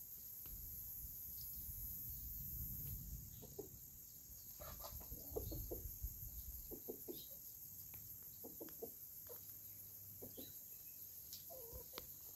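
Chickens clucking quietly, short calls coming in small scattered runs, with a low rumble under them in the first few seconds and again mid-way.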